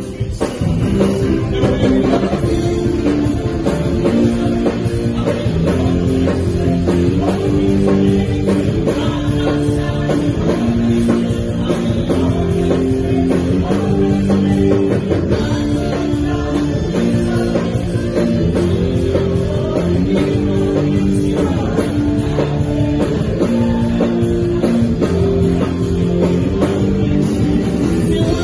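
Live praise band playing an instrumental rock-style passage: several electric guitars, keyboards and a drum kit, loud and steady.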